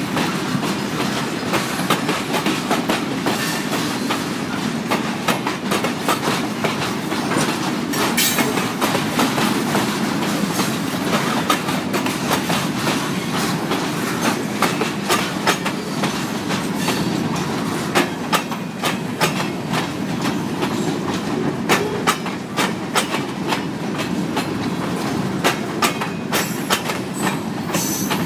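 Freight train hopper cars rolling past close by: a steady rumble of steel wheels on rail, with irregular clicks as the wheels cross rail joints.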